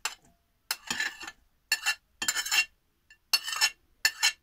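A metal utensil scraping and tapping diced tomatoes off a china plate into a glass bowl, in about six short scrapes and clinks.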